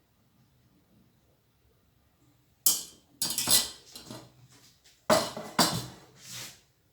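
Dishes and cutlery clinking in two short clusters of knocks and scrapes, about two and a half seconds apart.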